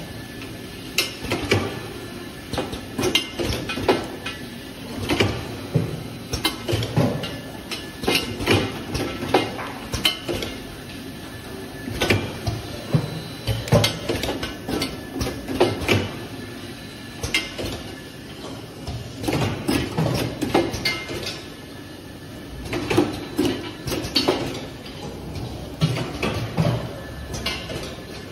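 Irregular clinks and knocks of bottles and caps being handled on a conveyor-fed cream filling and capping line, in uneven clusters, over a faint steady machine tone.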